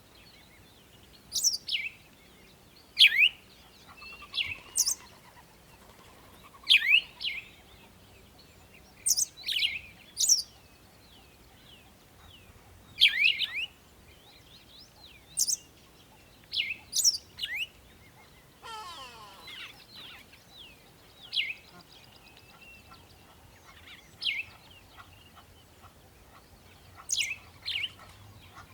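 Birds chirping: short, sharp, high calls that each sweep down in pitch, coming in ones and twos every second or two. About two-thirds of the way through, a longer, lower, rougher sound slides down in pitch.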